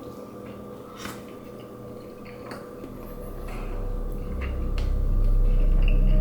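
A person eating, with a few quiet clicks of cutlery and mouth sounds. Background music with a deep bass fades in from about halfway through and grows steadily louder.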